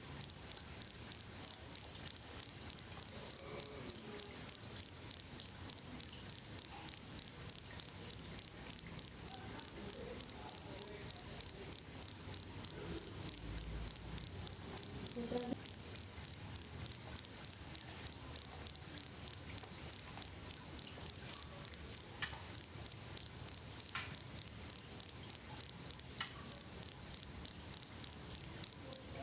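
A cricket chirping steadily in an even rhythm of high, pure chirps, about three a second.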